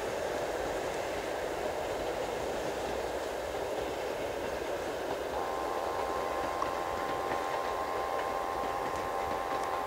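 Passenger train's coaches rolling away along the track, a steady rush of wheel and rail noise. About halfway through, a steady whining tone of several close pitches comes in and holds.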